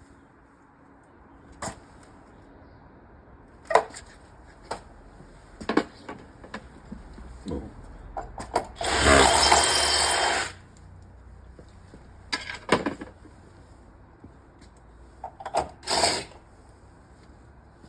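Power drill runs in one burst of about a second and a half about halfway through, and briefly again near the end, while the first row of wall pods is fixed with concrete screws. Scattered clicks and knocks come between the bursts.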